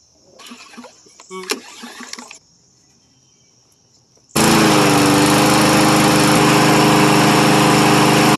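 Push lawn mower's small petrol engine running steadily at speed. It comes in abruptly about halfway through and cuts off sharply at the end, after a few seconds of light handling noises and a sharp click.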